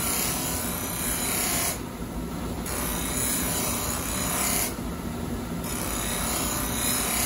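A powered buffing wheel polishing the steel of an Edo-style usuba kitchen knife: a steady rubbing hiss. The high part of the hiss drops away briefly about every three seconds.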